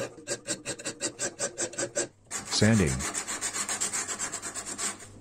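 A hand file rasping back and forth on the bevel of a steel saw-blade knife in quick, even strokes. After a short break about two seconds in, the blade is hand-sanded with sandpaper in fast back-and-forth strokes that stop near the end.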